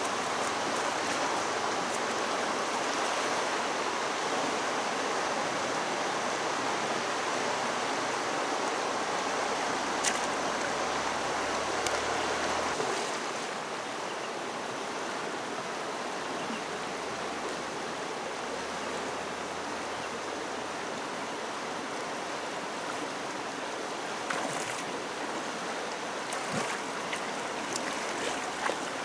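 Fast, swollen muddy river rushing steadily, with a few short splashes and knocks from wading and a long-handled woven bamboo scoop basket being worked in the current, most of them near the end.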